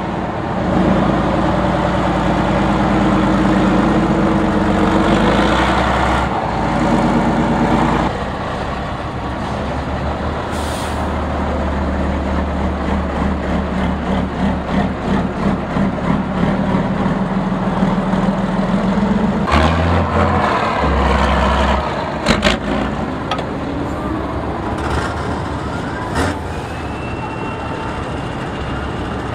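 Heavy off-road trial truck's diesel engine running under load as it climbs through mud and over dirt mounds. The engine sound changes abruptly several times.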